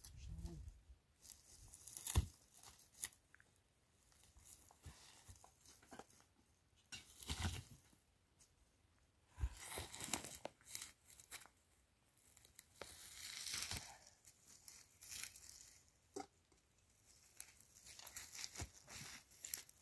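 Irregular rustling and crinkling, as of material being handled, in bursts a second or two long with quiet gaps, and a few sharp knocks.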